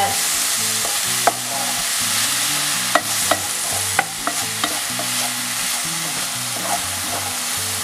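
Sliced champignon mushrooms sizzling as they fry in a pan, stirred with a wooden spatula that clicks against the pan several times.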